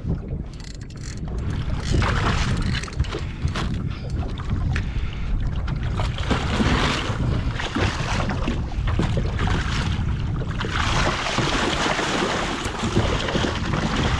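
Wind buffeting the microphone on a small boat at sea, with water washing around the hull and scattered knocks on board. Two longer stretches of splashing hiss come midway and near the end.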